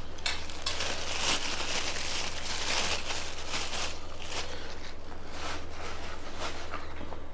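Food packaging crinkling and rustling as it is handled, with irregular small clicks throughout.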